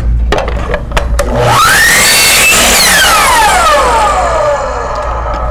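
Electric compound miter saw trimming the end off a wood strip: a few knocks, then about a second and a half in the motor whine rises as the blade spins up and cuts, and after the trigger is released the whine falls away as the blade coasts down over about two seconds.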